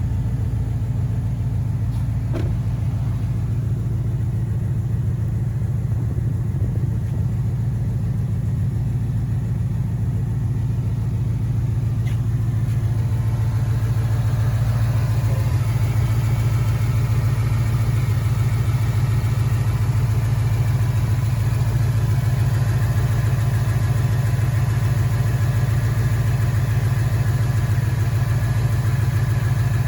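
2013 Ford Mustang GT's 5.0 Coyote V8 engine running steadily, with the knocking that the owner takes for rod knock. About halfway through it grows a little louder and a higher steady tone joins in.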